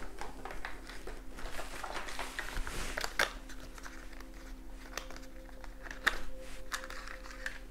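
Room tone: a low steady hum with a few faint, scattered clicks and rustles.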